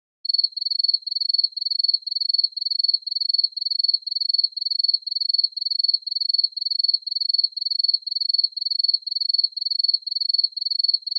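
A cricket chirping steadily: one high-pitched trilled chirp repeated at an even pace of about two a second, played as a stock sound effect.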